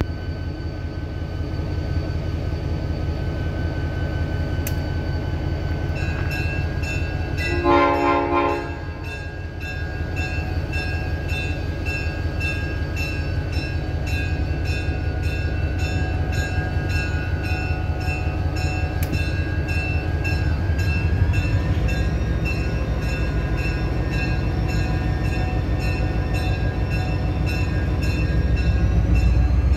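Diesel-electric locomotive idling with a steady low engine rumble, giving one short horn blast about eight seconds in. From about six seconds its bell rings in a steady rhythm, and near the end the engine revs up as the train starts to pull out.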